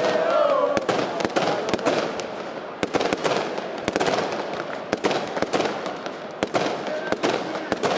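Firecrackers going off in a rapid, irregular string of sharp cracks over crowd noise, with voices shouting in the first second.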